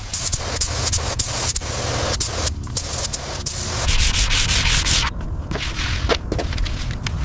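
Sanding on a car's bodywork: a rough, continuous rubbing hiss with quick uneven strokes, breaking off briefly about five seconds in.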